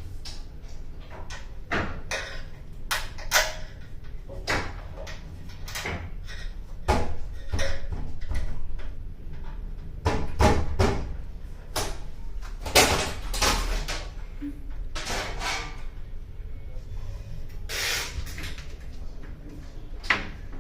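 Irregular knocks, bangs and scraping of hard objects being handled, over a low steady hum.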